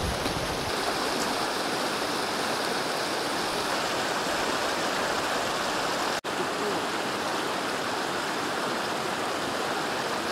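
Fast river water rushing over stones and rapids, a steady even rush that drops out for an instant about six seconds in.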